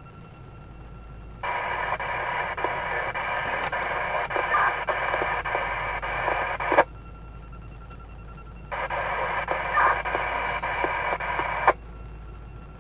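Police two-way radio opening up twice with hissy, unintelligible transmissions. The first runs about five seconds and the second about three, and each is cut off by a sharp squelch click.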